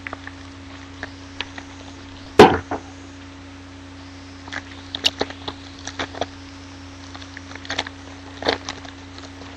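Cardboard card box and cards being handled: one sharp thunk about two and a half seconds in, then scattered short clicks and rustles, over a steady low hum.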